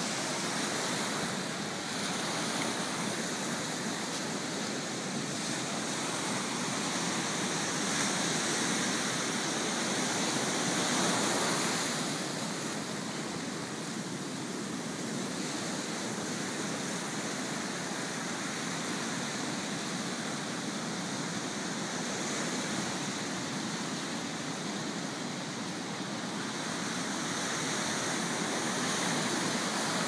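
Ocean surf breaking and washing up the beach: a steady rush that swells a little around ten seconds in and again near the end.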